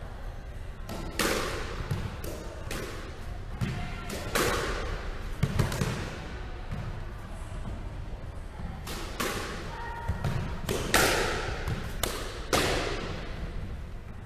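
Squash ball being struck by rackets and smacking off the court walls: about ten sharp hits at uneven spacing, each with a short echo after it.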